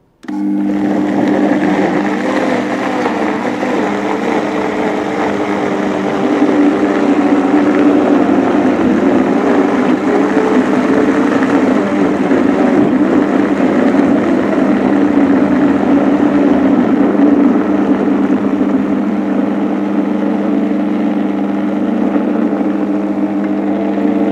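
Oster Versa 1400-watt blender running on low speed, churning frozen mango and cream into ice cream while the tamper pushes the thick mix down to the blades. It starts abruptly and holds a steady motor hum, with a fainter tone above it that wavers as the mixture churns.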